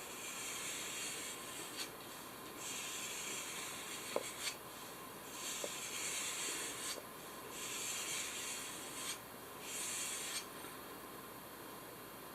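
Penknife blade drawn along a taut leather belt to strop it: a series of about five soft rubbing strokes with short pauses and a few light clicks between them. The stropping realigns the edge without removing metal.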